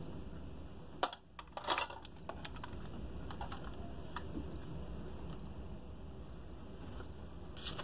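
A few light clicks and knocks from a soldering gun and small parts being handled on a workbench, over a low steady hum: one about a second in, a short cluster near two seconds, one near four seconds and several just at the end.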